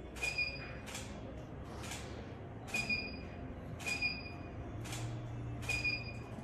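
Camera shutter firing repeatedly, about once a second, seven clicks in all. Several clicks come with a short high beep.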